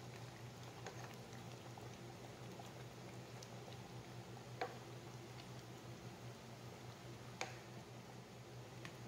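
Pot of kare-kare stew simmering: faint bubbling with scattered small pops over a low steady hum, and two sharper clicks, one about halfway through and one near the end.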